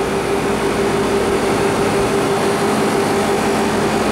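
Refrigeration condensing unit for an R22 milk tank running on cooling: the condenser fan gives a steady rush of air over a steady hum from the motor and compressor.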